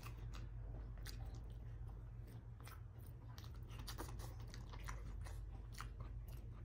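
Close-miked chewing of a mouthful of rice eaten by hand, with many short, irregular wet mouth clicks, over a steady low hum.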